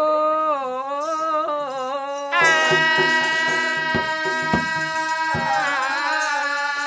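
Oggu katha folk singing: a man sings a wavering, ornamented line, then from about two and a half seconds in holds one long steady note. A few drum strokes sound under the held note.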